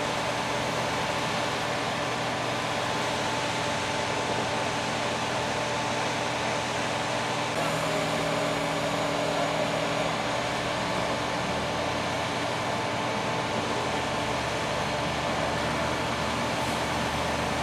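Heavy construction machinery running steadily: a continuous engine drone with constant hum tones, with a slight change in the noise about a third of the way in.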